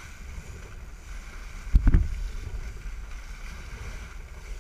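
Steady low rumble of a sportfishing boat with churning water at the stern, and wind on the microphone. A single loud low thump just under two seconds in.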